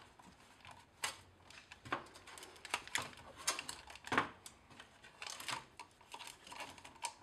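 Plastic zip tie being threaded and pulled tight by hand, its ratchet clicking in short irregular bursts, mixed with light plastic handling of the wired relay unit.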